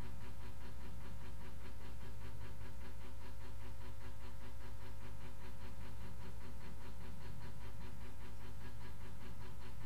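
Steady low electrical or machine hum with a fixed tone and a fast, even pulsing over it: constant room equipment noise.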